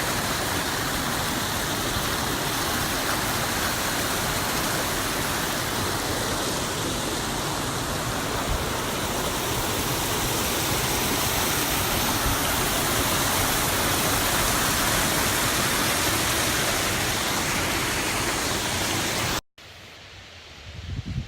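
A loud, steady, even rushing noise that starts and stops abruptly, with no change in between.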